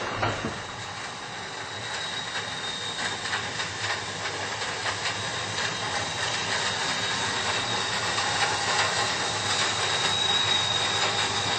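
A steady hiss with a thin high whistle and scattered faint ticks, following a much louder sound that stops right at the start.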